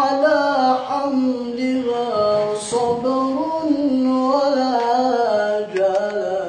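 A solo male voice chanting an Islamic ibtihal (devotional supplication) unaccompanied, in long held notes with wavering ornaments.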